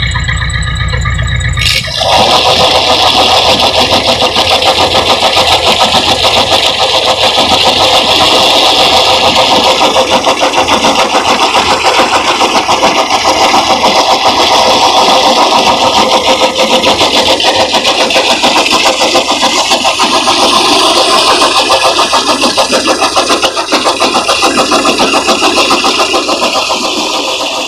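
HMT tractor's diesel engine running hard with a fast, even pulsing beat, driving the pump for the borewell trial. About two seconds in it suddenly becomes much louder and harsher.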